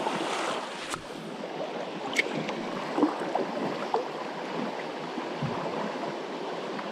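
Steady rush of a flowing creek, with a few faint clicks about one, two and three seconds in.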